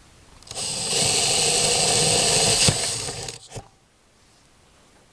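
Electric drill with a 3 mm bit running for about three seconds, a steady motor whine, stopping with a short knock.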